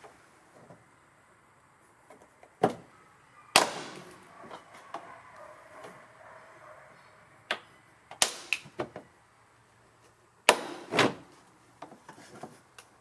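A handful of sharp snaps and clacks at irregular intervals: the hard plastic clips holding the rocker panel trim giving way as the trim is pried off with a trim removal tool.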